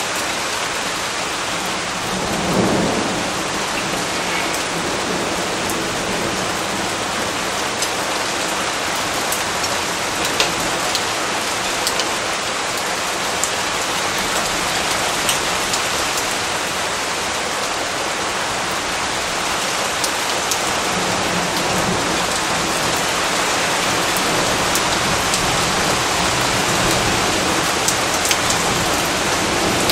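Steady rain with scattered drops ticking, and a low rumble of thunder swelling about two to three seconds in.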